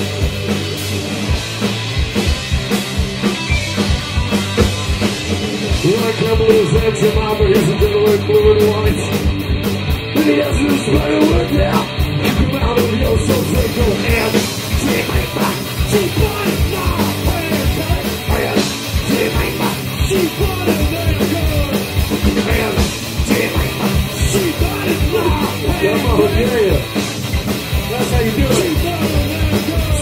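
Live rock band playing loud: electric guitar over a drum kit keeping a steady, driving beat.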